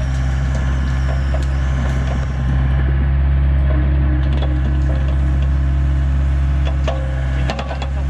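Excavator's diesel engine running steadily under load as its hydraulic grapple lifts a boulder, with scattered knocks and clicks of rock being handled.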